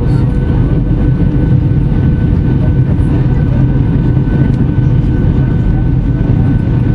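Steady roar of a Boeing 757-200's engines and airflow heard inside the passenger cabin beside the wing on approach to land, with a faint steady whine over it.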